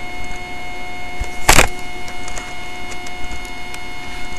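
Steady electronic hiss with a faint high whine from the recording, broken about a second and a half in by one short, sharp breath from the man.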